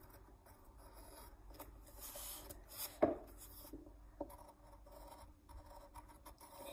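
Faint scratching of a pencil drawing on paper, in short strokes, with a brief louder sound about three seconds in.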